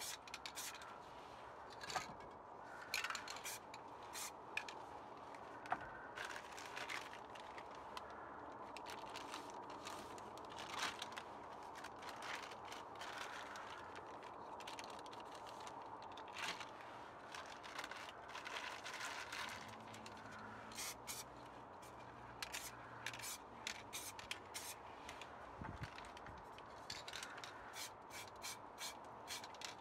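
Aerosol spray paint hissing in short bursts onto paper, mixed with the crinkling of a crumpled plastic bag pressed and dabbed onto the wet paint for texture. It is faint, with many quick sharp crackles.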